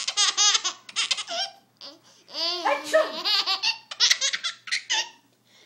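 Baby laughing: repeated bursts of high-pitched giggles, broken by a short pause about two seconds in.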